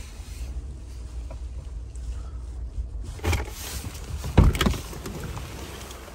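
Low rumble inside a pickup truck's cab. A little past the middle come a click and a loud thump as the driver's door is unlatched and pushed open.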